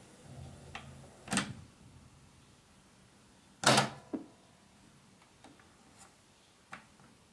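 Clicks of the Grundig RR240 radio cassette recorder's top buttons and switches being worked by hand: a louder click about a second in, the loudest near four seconds, and several faint ticks between them.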